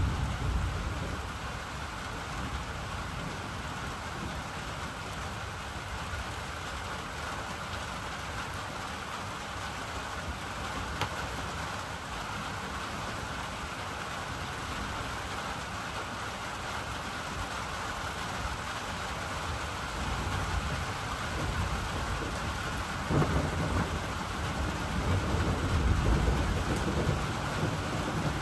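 Heavy rain pouring down steadily in a thunderstorm, with low rumbles of thunder in the first second and again over the last five seconds or so.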